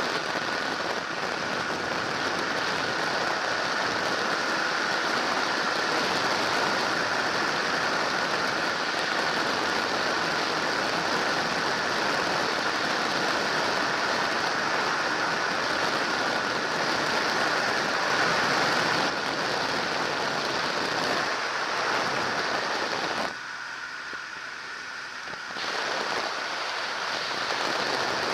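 Microlight trike in cruising flight: the steady drone of its engine and pusher propeller mixed with heavy wind rush on the microphone. Near the end the noise drops sharply for about two seconds, then comes back.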